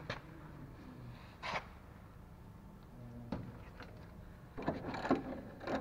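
Scattered clicks and light knocks of hand tools and metal suspension parts being handled, a few single ones spaced out and then a quicker run of clicks near the end.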